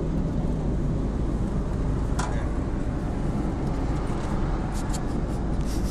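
Steady low rumble inside a car's cabin as the car moves slowly through a car wash, with one light click about two seconds in and a few short hisses near the end.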